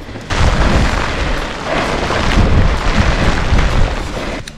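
Wind buffeting the microphone of a bike-mounted or helmet camera on a fast mountain-bike descent, mixed with tyres rumbling over rough, wet trail. The noise cuts in suddenly about a third of a second in and stays loud and rumbling.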